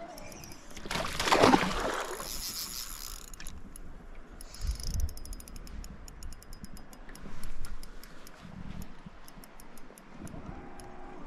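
Shimano Stella 2500S spinning reel being cranked, its retrieve giving a steady run of light ticks about three a second. A loud whoosh about a second in.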